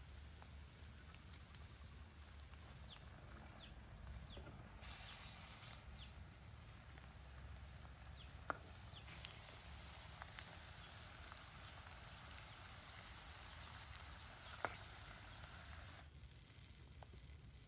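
Faint crackle and sizzle of a wood fire under a pan of braising chicken and eggs, with a brief rush of hiss about five seconds in and two sharp clicks, one near the middle and one toward the end. The crackle drops away near the end.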